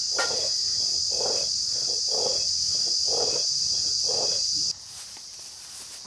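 Steady, high-pitched outdoor insect chorus, like crickets, with a soft lower sound repeating about once a second beneath it. The chorus cuts off abruptly about three-quarters of the way through.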